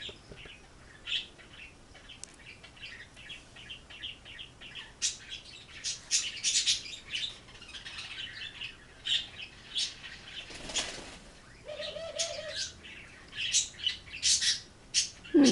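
Birds chirping in short, irregular bursts, with one short wavering coo about twelve seconds in.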